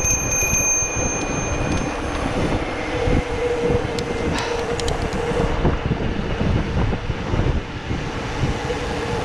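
Mountain bike rolling on asphalt, heard through a handlebar-mounted camera: a continuous rumble with frequent small rattles from the bike over the road and a steady hum from the rolling tyres.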